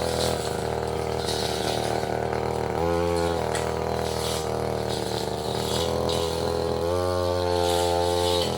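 Tasco 33 Pro two-stroke brush cutter engine running steadily, its note changing briefly about three seconds in and again for a longer stretch near the end.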